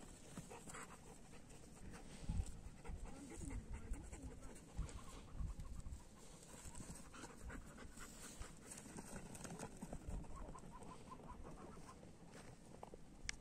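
Long-haired German shepherds panting as they run and play on dry grass, with a few low thumps about two to six seconds in and faint bird calls in the background.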